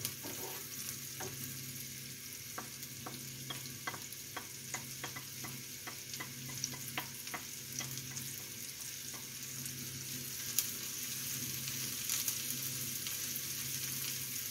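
Onions and wild asparagus sizzling in a frying pan with butter. A wooden spatula taps and scrapes many times against the bowl and pan as the asparagus goes in and is stirred. The sizzle grows a little louder in the last few seconds.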